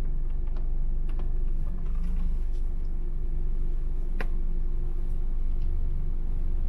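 Car engine idling, heard inside the cabin as a steady low rumble with a hum, and one light click about four seconds in.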